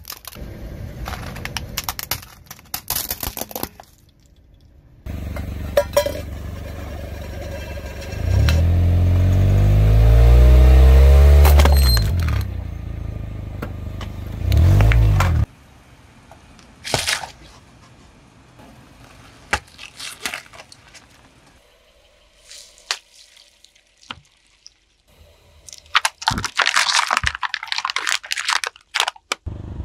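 A car's engine runs and the car rolls close by from about five seconds in, loudest around ten to twelve seconds, then cuts off suddenly near the middle. Objects crack and crunch under the tyre in scattered sharp snaps, with a dense burst of crackling near the end.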